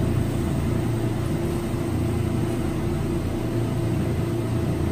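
Glassworking bench torch burning with a steady low rush, its flame heating a glass rod, with a faint steady hum underneath.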